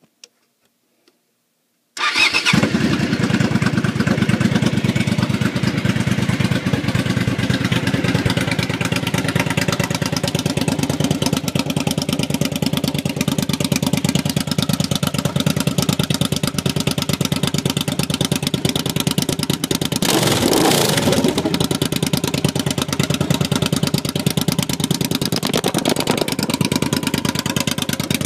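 Suzuki TL1000R's 90-degree V-twin engine starting about two seconds in, then idling loud and lumpy through cut-down exhaust pipes, with a brief rev about two-thirds of the way through.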